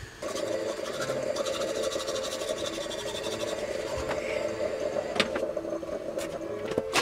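Stovetop moka pot gurgling and sputtering on a gas hob as the coffee comes through: a steady hissing, crackling gurgle that starts suddenly. A few sharp clacks of kitchenware come near the end.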